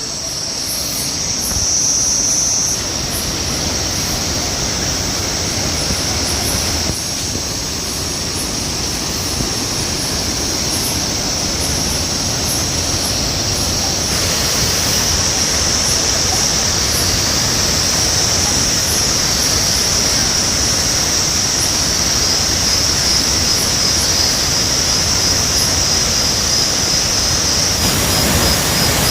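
Changey Falls waterfall: a steady, loud rush of falling water. Above it runs a steady high-pitched whine that turns into a rapid pulsing near the end.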